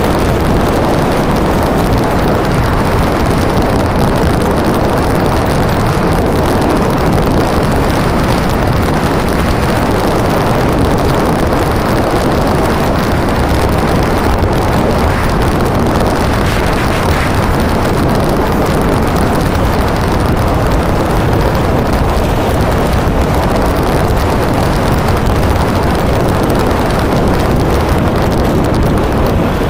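Motorcycle riding along a sandy track, heard from a camera mounted on the bike: a loud, steady rush of wind on the microphone mixed with engine noise.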